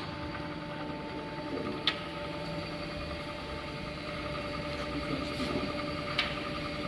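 Jones & Shipman cylindrical grinder running with its hydraulic system switched on: a steady electric hum holding a few constant tones. Two short sharp clicks, about two seconds in and again near the end.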